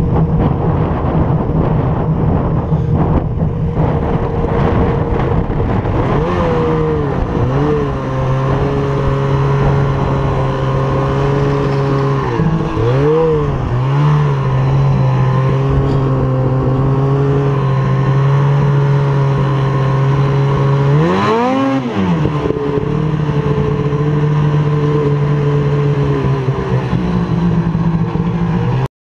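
Two-stroke snowmobile engine running at a steady cruising speed, heard from on board the sled. Its pitch dips and climbs back up about a third of the way in and again about three quarters through, as the throttle is eased and reopened. The first few seconds are mostly a rushing noise with no clear engine note.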